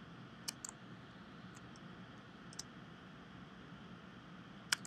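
A handful of scattered computer mouse clicks over a faint steady hiss, the loudest one near the end.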